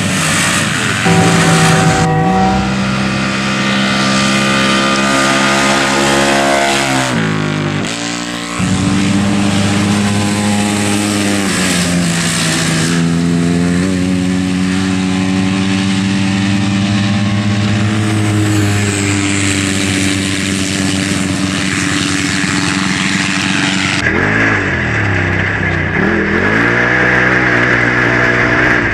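Sport UTV (side-by-side) engines running hard at high revs, mostly holding a steady pitch, with a brief drop and pick-up in revs about eight seconds in. In the last few seconds a closer engine revs up and down repeatedly under a steady high whine.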